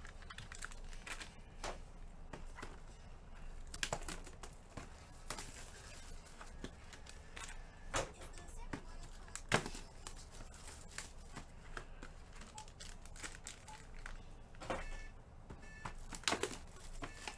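Crinkling and scattered clicks and taps of things being handled on a table, with a few sharper knocks.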